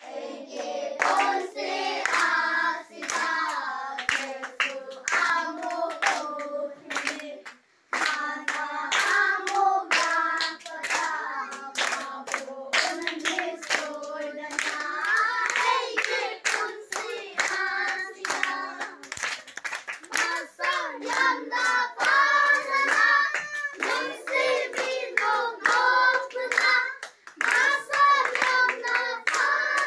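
A group of children singing together and clapping along in time, about two claps a second, with a short break about eight seconds in.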